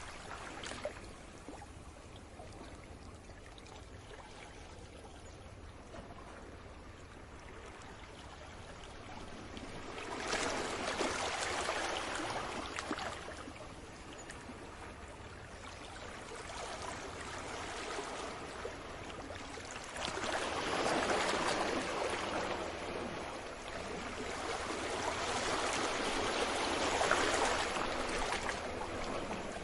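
Small sea waves washing onto the shore and draining back, in slow swells every few seconds with quieter lulls between, over a low steady rumble.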